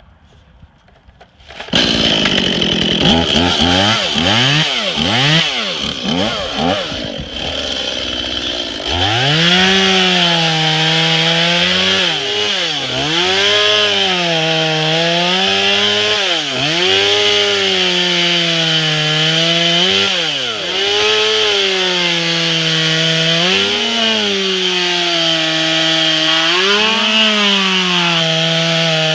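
Stihl MS 180 C two-stroke chainsaw starting up about two seconds in and revving up and down unevenly, then held at high revs from about nine seconds in while cutting into wood, its pitch dipping and recovering every couple of seconds as the chain bites.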